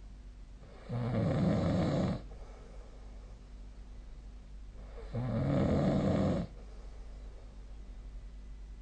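A sleeping person snoring: two loud snores, each a little over a second long, about four seconds apart.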